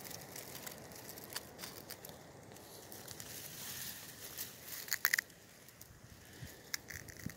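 Dry dead grass stems rustling and crackling as fingers push through them, with a short louder cluster of sharp crackles about five seconds in.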